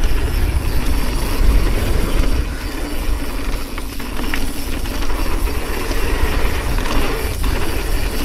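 Mountain bike rolling fast down a dirt trail: tyre roar and frame and chain rattle, with heavy wind rumble on the action camera's microphone.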